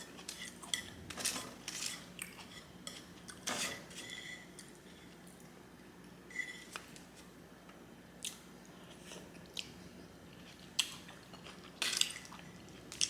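Close-miked eating of japchae glass noodles: wet chewing and mouth sounds, with eating utensils clicking irregularly against a plate, a few louder clacks near the middle and the end.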